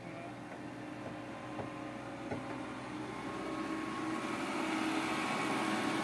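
Caterpillar 428E backhoe loader's diesel engine running steadily, growing louder over the last few seconds.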